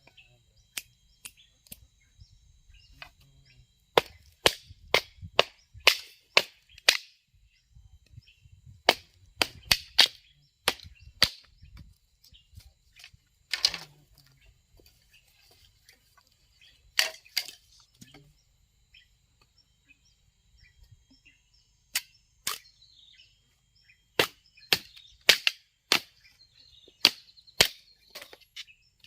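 Sharp, hard tool strikes, in runs of several blows about two a second separated by pauses; one blow, about halfway through, rings on briefly.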